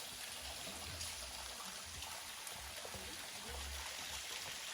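Butuase waterfall's steady rush of falling water.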